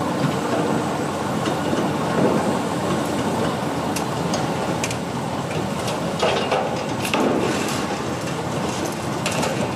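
High-reach demolition excavator working on a steel structure: its diesel engine runs steadily under scattered metal knocks and clanks from the attachment working the steel, with louder clanks about six and seven seconds in.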